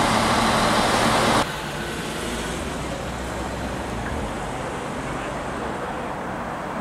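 Loud station-platform noise beside a ČD class 843 diesel railcar, cut off abruptly about a second and a half in. Then quieter, steady street traffic noise with a low rumble from passing vehicles.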